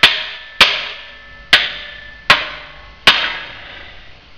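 Hammer blows on a steel tube and bracket: five sharp strikes, a little under a second apart, each leaving a short metallic ring.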